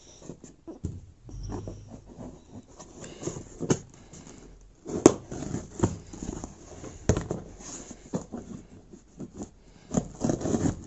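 Cardboard shipping box being handled and opened by hand: irregular scraping, rustling and sharp clicks and knocks as its packing tape is worked loose, with one sharp click about five seconds in.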